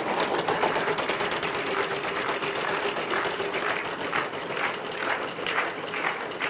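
Game-show prize wheel spinning, its pointer clicking rapidly against the pegs. The clicks slow as the wheel loses speed.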